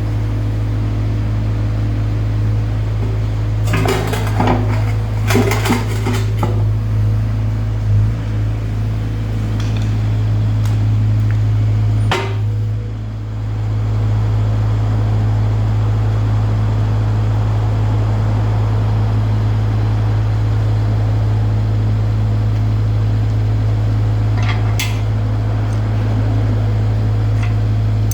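SANY SY60 mini excavator's diesel engine running at a steady drone, with bursts of metal-on-metal clanking and knocking from the quick coupler and attachment: a cluster of clanks about four to six seconds in, single knocks around eight and twelve seconds, and a few more clanks near the end.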